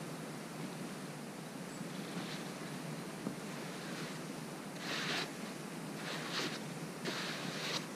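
Snow being brushed and scraped aside by hand, with three or four short swishes in the second half over a steady background hiss.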